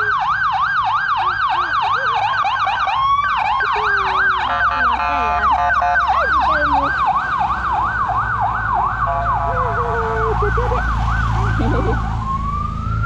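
Police escort siren yelping, a fast rising-and-falling whoop about three to four times a second. A second siren overlaps in the middle, and near the end the sound slides up into a long rising wail. Engines of passing vehicles rumble underneath in the second half.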